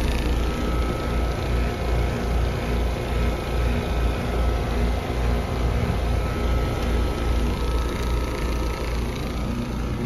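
Trane XL15i heat pump outdoor unit running in heat mode: its Alliance scroll compressor and condenser fan give a steady hum over a pulsing low rumble.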